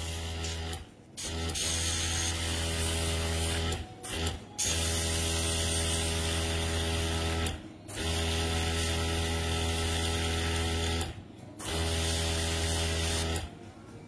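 Airbrush spraying black nail paint through a lace stencil: a hiss of air over the hum of its small compressor. It comes in five spells of spraying with short pauses between them and stops shortly before the end.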